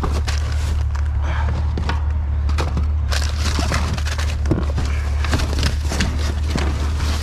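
Truck engine idling with a steady low drone, under repeated rustling, crinkling and light knocks of trash being rummaged through by hand.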